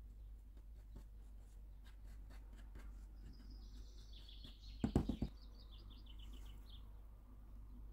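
A plastic tub of dough is turned upside down and set down on a countertop with a quick cluster of knocks about five seconds in, after faint rustling of fingers working flour. A bird sings a series of short high notes in the background.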